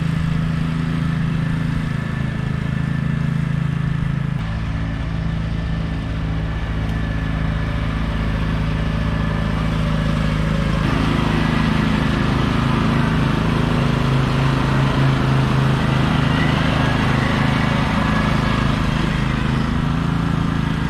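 Troy-Bilt TB30R riding lawn mower's engine running steadily while mowing. Its drone changes about four seconds in and grows louder and busier from about ten seconds in.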